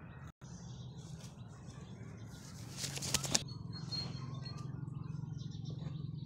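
Feathers of an Aseel rooster's wing rustling and flapping briefly as the wing is held and spread by hand, loudest about two and a half to three and a half seconds in.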